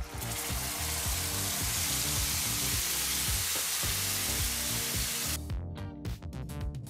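Hot ghee sizzling in a kadai as cooked rice-and-moong-dal pongal is poured onto a tempering of cashews and curry leaves, over background music. The sizzle cuts off suddenly about five seconds in, leaving only the music.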